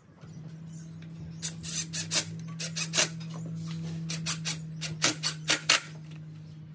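Cordless drill driving a screw into a clamped wooden frame joint: the motor starts and runs at a steady pitch, with a run of sharp clicks in the middle.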